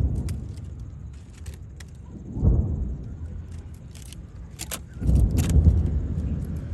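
Aerial fireworks bursting: deep booms at the start and about two and a half seconds in, then a longer rolling rumble from about five seconds. Sharp crackles and snaps from crackling shells come in between.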